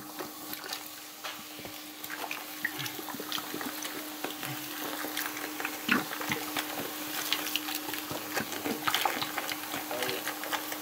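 Cola pouring from a plastic bottle into a ceramic sink basin, splashing steadily and fizzing as it foams around the drain, with a constant crackle of many tiny bursting bubbles.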